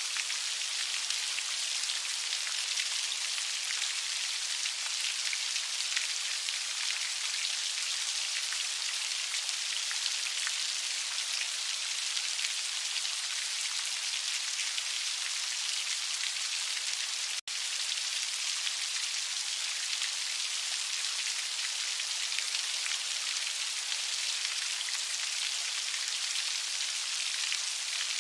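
Steady heavy rain falling, an even hiss with no let-up, except for a split-second drop-out about halfway through.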